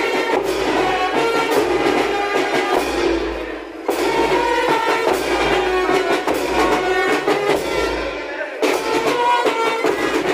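Live uniformed marching band playing: a brass melody over cymbal crashes and drum beats. The music breaks off and starts again twice, about 4 s and 8.7 s in.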